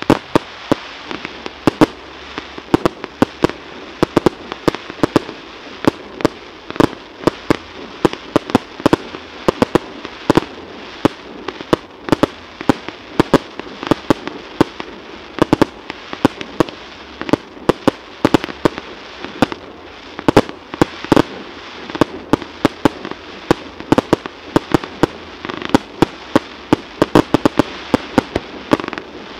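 Fireworks display: aerial shells bursting in a rapid, irregular string of sharp bangs, several a second, over a steady background noise.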